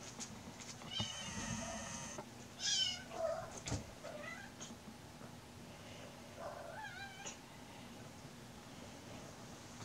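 Kittens shrieking and mewing as they wrestle. A long high shriek starts about a second in, a louder wavering cry comes near three seconds, then shorter mews follow, and another cry comes around seven seconds.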